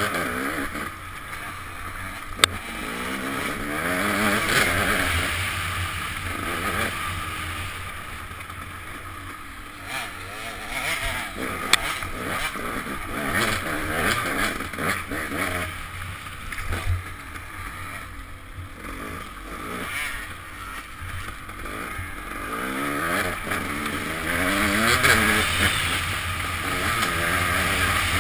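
KTM dirt bike engine revving up and down as the bike is ridden hard along a twisting trail, heard from a helmet camera over a steady rush of noise. Two brief sharp clicks come through, one early and one near the middle.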